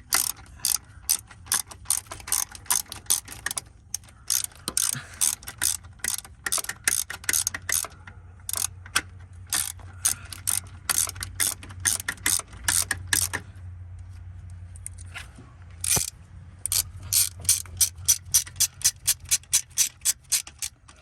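Socket ratchet clicking in quick runs of strokes as a starter mounting bolt is tightened down. The clicking stops for a couple of seconds about two-thirds through, then starts again.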